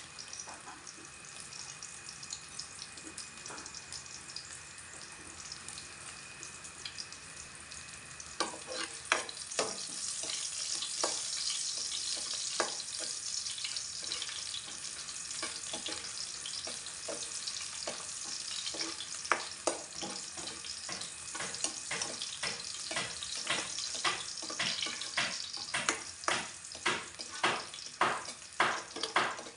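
A pan of tulya (small freshwater clams) sizzling as it is sautéed. From about a quarter of the way in it is stirred, with clattering knocks that come quicker and louder near the end.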